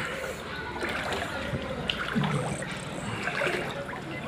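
Shallow muddy floodwater splashing and trickling.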